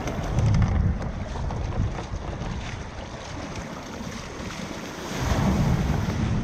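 Surf washing and churning around a sit-on-top kayak coming into the beach through shore break, with wind buffeting the microphone. A breaking wave crashes over the kayak about five seconds in and is the loudest part.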